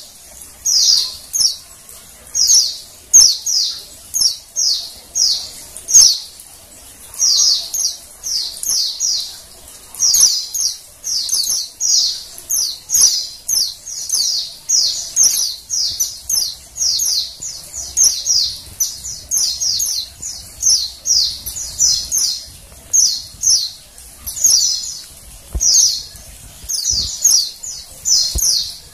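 Female white-eye (pleci) calling: short clusters of high, downward-sloping chirps, repeated over and over more than once a second. Keepers play this female call as a lure to get male white-eyes singing.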